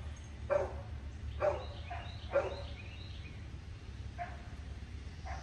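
A dog barking faintly, single barks about a second apart, the later ones weaker.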